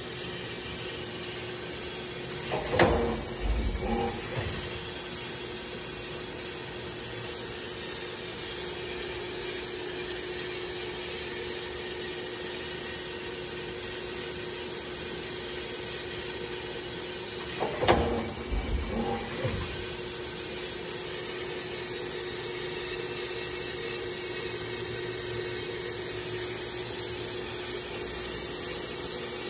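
Trident TR 45E CNC drilling-tapping center running with a steady hum and a constant tone. Two short bursts of mechanical clunking and clatter sound from it, about 3 seconds in and again about 18 seconds in.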